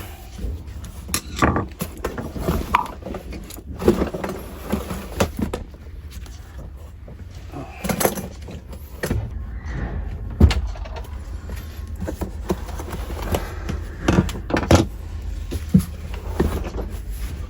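Irregular clicks, knocks and rustling of hands handling stiff electrical wire and tools at a wall outlet, over a steady low hum.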